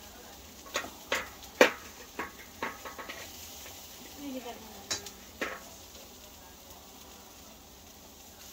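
Sharp clinks and taps of metal utensils handling meat on a barbecue grill, about seven of them in the first five and a half seconds with the loudest about a second and a half in, over a faint steady hiss.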